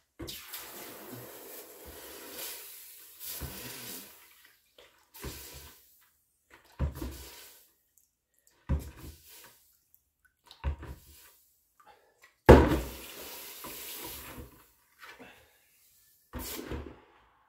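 Running water and splashing, heard in short separate stretches, the loudest about twelve and a half seconds in.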